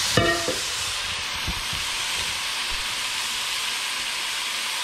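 Ground turkey and chicken mixture sizzling on diced onions in hot oil in an aluminium pot, a steady frying hiss. A brief pitched sound comes just after the start, and a few light knocks follow.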